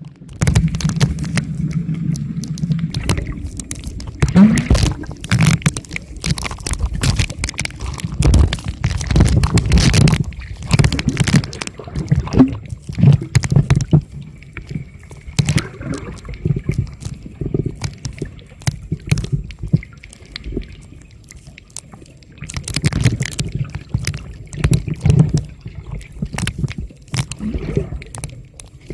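Water sloshing and gurgling right at the microphone, surging in uneven waves, with many sharp clicks and knocks throughout.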